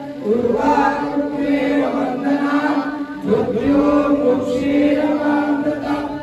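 A group of men chanting a Hindu mantra in unison during puja, on a steady held pitch, in two long phrases with a short break about three seconds in.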